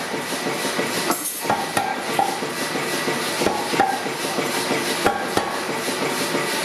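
Hand-hammer blows on steel at an anvil, a run of irregularly spaced strikes, several with a short metallic ring, over a steady rushing background noise.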